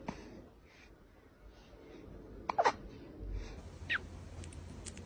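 Kitten hiccuping: short, squeaky hics that drop in pitch, two close together about two and a half seconds in and another near four seconds.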